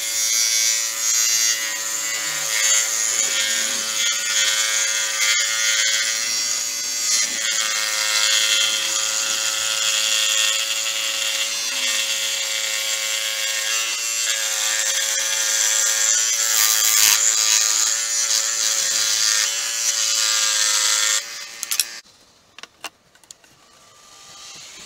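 Electric power tool running under load on the steel of a motorcycle brake disc: a steady motor whine with a dense hiss, its pitch wavering slightly. It stops suddenly about 21 seconds in, followed by a few faint clicks.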